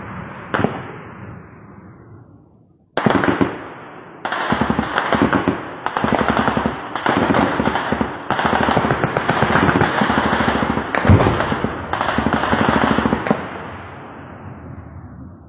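Automatic gunfire: a few scattered shots, then from about three seconds in, long bursts of rapid machine-gun fire that run on for about ten seconds and die away in echoes near the end.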